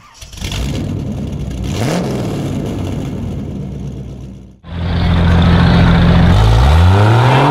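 A loud engine-like intro sound cuts off abruptly just past halfway. Then a Jeep Cherokee XJ tough truck's engine runs steadily at low revs, and about two seconds later revs up, its pitch climbing smoothly as it pulls away.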